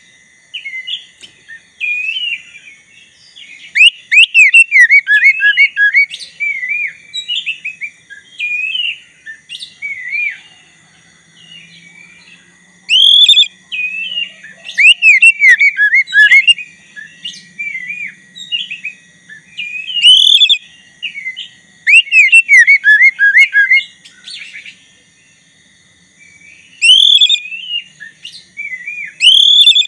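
Black-breasted oriental magpie-robin singing: loud bursts of varied whistled phrases and quick sweeping trills about every seven seconds, with softer twittering between them.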